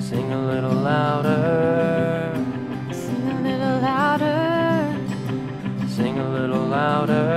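A live worship song: a woman singing long, held notes over strummed acoustic guitar.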